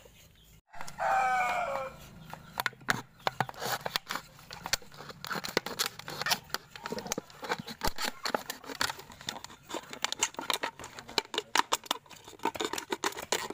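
A rooster crows once, about a second in, the loudest sound here. After it comes a steady run of irregular crackling clicks as a knife blade cuts through a thin plastic drink bottle.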